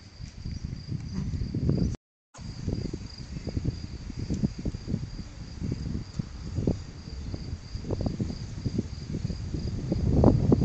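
Gusty storm wind buffeting the microphone in irregular low rumbles, over a steady high chirping of crickets. The sound cuts out for a moment about two seconds in, and the wind grows louder near the end.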